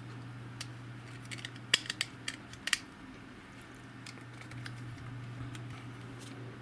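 Small plastic clicks and taps of a compact camcorder being handled as it is lifted out of its padded carrying case, busiest in the first three seconds with two sharper clicks, then a few faint ones. A steady low hum runs underneath.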